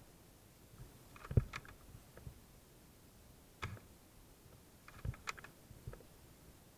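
A few scattered sharp clicks and knocks over a quiet background, the loudest a deeper knock about a second and a half in.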